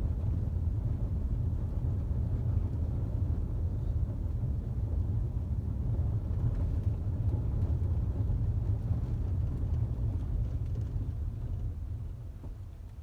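Road and tyre rumble heard from inside the cabin of a 2021 Ford Territory on the move, steady and low, with no knocking from the rear: the fault, play in a rear shock absorber rod, is cured. The rumble fades near the end.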